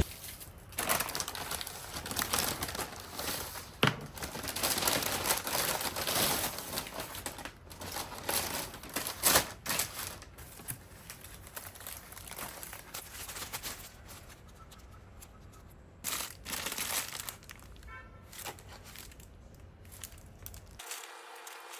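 Irregular crinkling and rustling, like something being handled and crumpled, with scattered sharp clicks. It is busiest in the first half, then quieter with a short flurry about two-thirds through.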